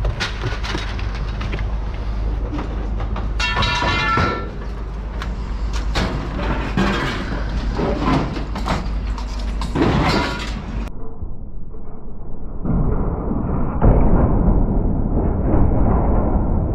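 Scrap metal and junk being thrown out of a truck, with repeated clanks, bangs and thuds, one piece ringing briefly about four seconds in.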